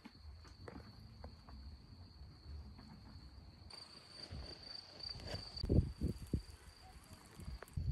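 A cricket singing a steady, unbroken high trill that grows louder for a couple of seconds around the middle. A few low thumps come in near the end.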